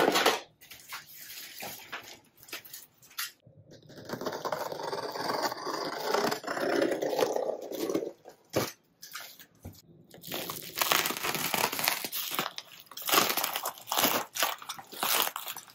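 A box cutter slices through bubble wrap and plastic stretch film, with the plastic crinkling and crackling as it is cut and pulled open. The crackling grows dense in the second half. A few light clicks near the start come from tools handled in a plastic toolbox.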